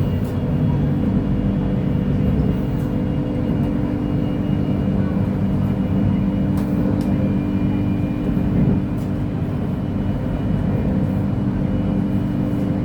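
KTM Komuter electric multiple unit giving out a steady low hum and rumble, with a faint high whine and a few faint clicks.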